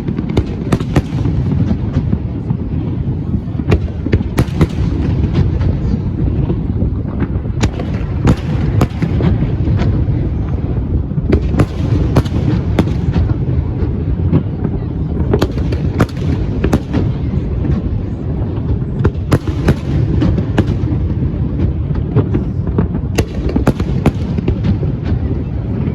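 Fireworks display: aerial shells bursting in a rapid, irregular run of bangs and crackles over a continuous low rumble.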